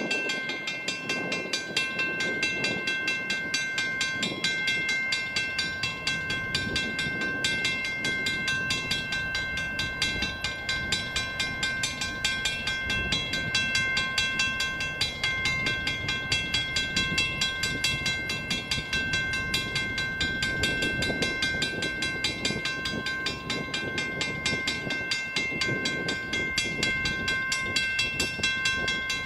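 Western Cullen Hayes mechanical level-crossing bell ringing in rapid, even strokes while the crossing signals are active, over a low background rumble.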